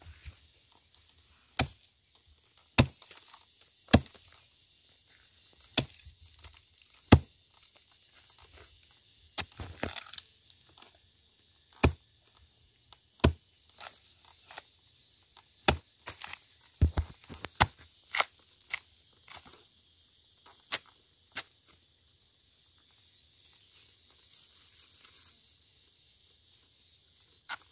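Hatchet chopping into a dead, splintered wooden stump: sharp blows roughly a second apart, with a stretch of wood tearing and splitting around ten seconds in. A quick cluster of blows comes a little past halfway, and the chopping stops for the last several seconds.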